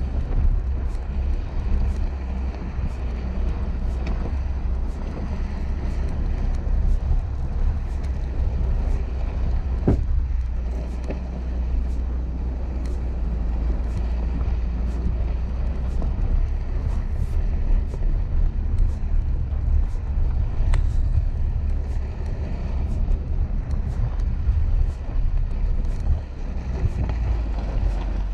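Mahindra Thar's petrol engine running steadily as the 4x4 drives over a rough mud track, with a constant low rumble and frequent short sharp knocks and rattles.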